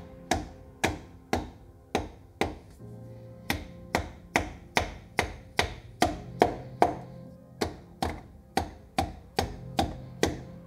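Background music with a steady percussive beat of about two hits a second over held low notes.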